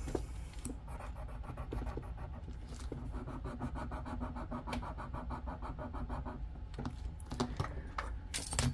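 A metal bangle bracelet scratched rapidly back and forth against a hard surface in a scratch test for silver: a faint, even scratching at about six strokes a second that stops about six seconds in. A sharp click near the end.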